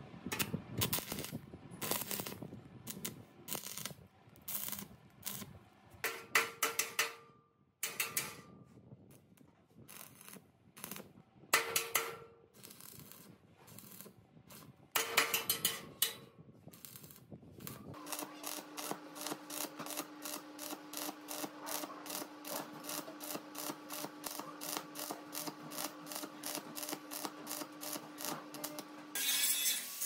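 Hand work on metal machine parts: irregular metallic clicks and knocks, some ringing briefly. Partway through this gives way to a fast, even ratchet-like clicking, about four clicks a second, over a faint steady hum. A louder steady noise starts just before the end.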